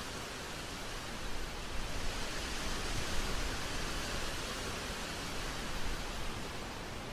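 A steady rushing hiss of noise with no tune in it, swelling a little a couple of seconds in and easing again.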